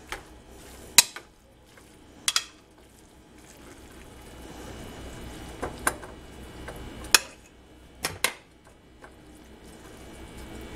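Metal kitchen tongs clacking against cookware while stir-fried beef, broccoli and noodles are served out, about eight sharp, irregular clacks over a low hiss.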